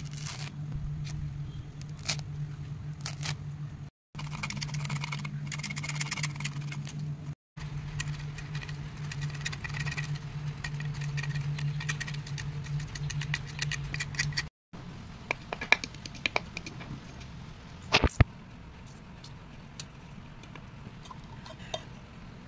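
Coconut husk being pulled apart and its fibres scraped off the shell with a knife: dry rasping and many fine crackles over a steady low hum, which stops partway through. Later come scattered clicks and a few sharp knocks.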